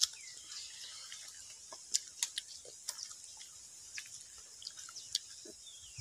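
Biting and chewing crisp, unripe green mango: a scatter of short, sharp crunches and clicks a second or so apart, over a steady high-pitched hiss.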